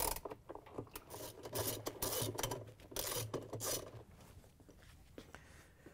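Socket ratchet on a long extension backing out a top-load washer's wash plate bolt: three short bursts of ratchet clicking about a second apart, dying away about four seconds in.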